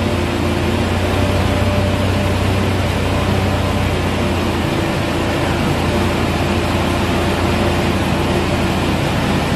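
A mini dump truck's small engine running steadily, driving a PTO hydraulic pump that raises the tipper bed, with a constant low hum.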